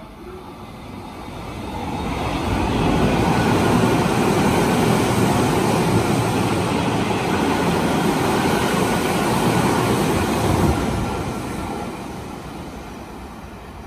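Meitetsu 2000 series μSKY electric limited express train running through a station without stopping: wheels and cars running over the rails. The noise swells over about two seconds as it approaches, stays loud for about eight seconds as the cars go by, then fades as it pulls away.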